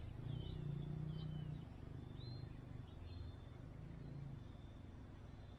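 Faint birds chirping, a few short sliding calls in the first half, over a low steady outdoor rumble.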